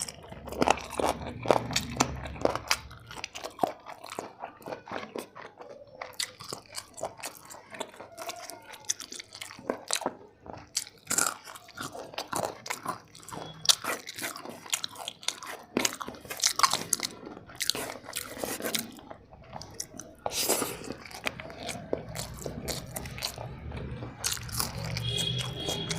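Close-miked eating of chicken biryani: a person biting and chewing, with many irregular short clicks of the mouth and food.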